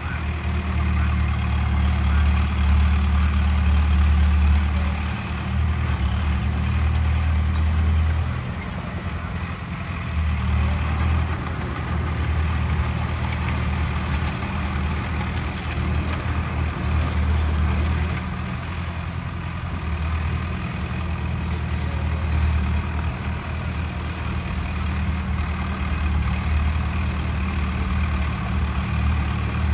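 Heavy diesel engine of earth-moving machinery running steadily with a deep hum, its level swelling and easing every several seconds.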